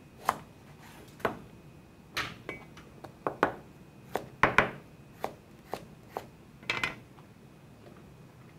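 A knife cutting vegetables on a cutting board: about a dozen sharp, irregularly spaced knocks, the loudest pair about halfway through.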